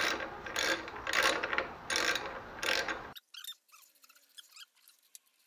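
Socket wrench ratchet clicking in about five quick back-and-forth strokes as a nut on a lawn mower carburetor is tightened. It stops about three seconds in, leaving only a few faint ticks.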